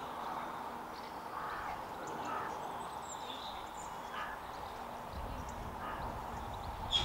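Diesel engines of a Class 117 DMU running steadily as the unit moves slowly through the station, with faint birdsong chirps over it; a low rumble builds about five seconds in.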